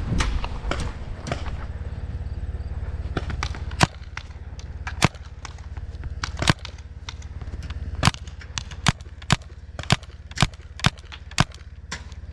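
Paintball markers firing single shots: about a dozen sharp pops at uneven spacing, coming closer together, around two a second, in the second half.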